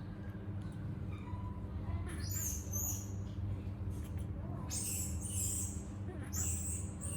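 Baby monkey giving short, high-pitched squeaks in a few small clusters, over a steady low hum.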